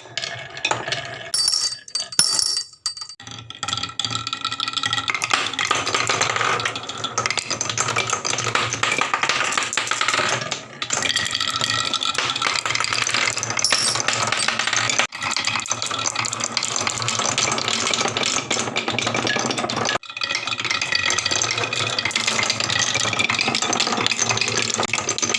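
Marbles and small toys rattling down a HABA wooden slope marble run: a dense, continuous clatter of many quick wooden knocks and clicks. It starts sparser and fills in about three seconds in.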